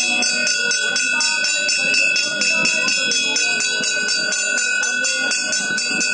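Temple bell rung rapidly and continuously during worship at a shrine, its ringing tones held steady under the fast strokes, with a crowd's voices beneath.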